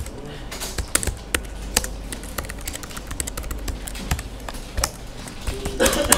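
Computer keyboard typing: irregularly spaced keystroke clicks, with a louder cluster of keystrokes near the end.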